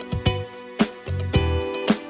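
Background music with a plucked guitar and a steady beat.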